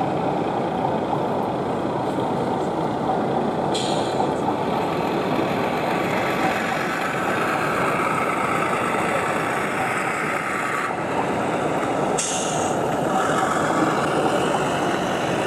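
Steady, even noise of a busy exhibition hall while a model train runs past on the layout, with two short hisses about four and twelve seconds in.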